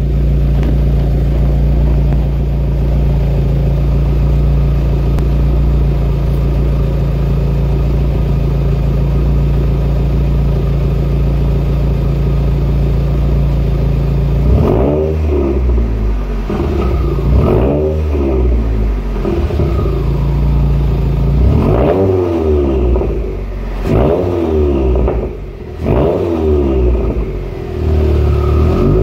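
Subaru WRX turbocharged flat-four idling steadily through a catless 3-inch turbo-back exhaust with a Killer B header. About halfway in it is revved in about six short blips, each rising and falling back toward idle.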